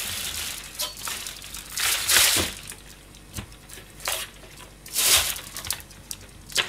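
Plastic wrapping crinkling as bunched Japanese green onions are handled, with two louder rustles, about two seconds in and about five seconds in, and a few light knocks between.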